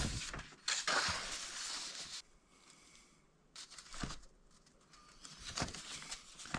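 Faint handling noises: a rustle in the first couple of seconds, then a few short clicks and rustles.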